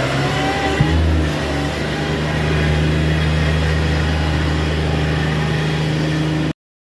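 Bobcat MT100 stand-on mini track loader engine running steadily at working speed, with one sharp clank a little under a second in. The sound cuts off suddenly near the end.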